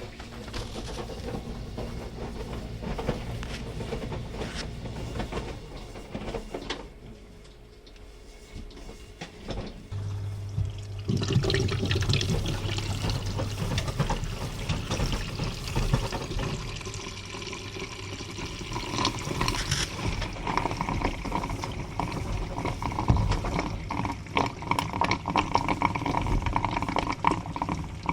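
Washing machine discharging its waste water through the drain hose into a floor-mounted drain trap. A low hum starts about ten seconds in, and a moment later water rushes steadily into the drain.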